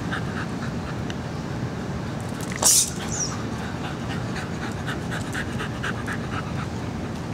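Bedlington Terrier panting in quick, even breaths, about five a second, with a short, sharp hissing noise about two and a half seconds in.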